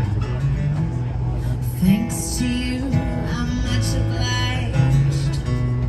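Live acoustic guitar music, plucked and strummed, with changing notes and no clear singing.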